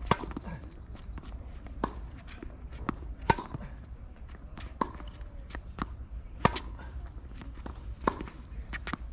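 Tennis rally: a tennis ball struck by rackets and bouncing on the court, a sharp pop about every one and a half seconds, the loudest roughly every three seconds.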